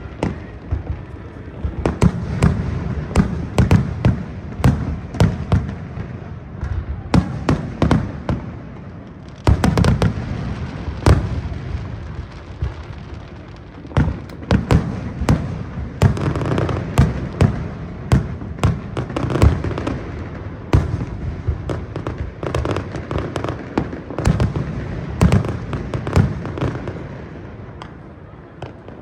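Fireworks display: a fast, irregular run of shell bursts, several loud bangs a second at its densest. It eases off briefly a little before halfway and again near the end.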